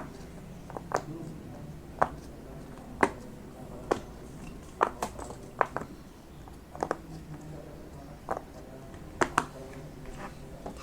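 Silicone pop-it fidget toy bubbles being pressed one by one, each giving a short sharp pop, about a dozen pops at uneven spacing, roughly one a second with a few quick pairs.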